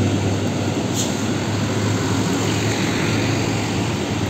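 Diesel trucks driving past on a road: engines running steadily with tyre and road noise. A brief click about a second in.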